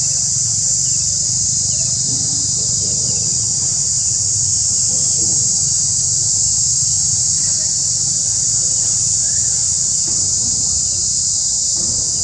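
A steady, high-pitched insect chorus that does not vary, over a low steady rumble, with a few faint short chirps.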